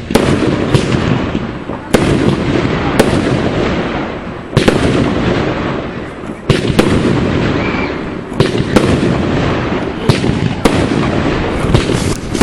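Fireworks display: aerial shells bursting one after another, a sharp bang roughly every second, with a dense crackling rumble swelling and fading between the bangs.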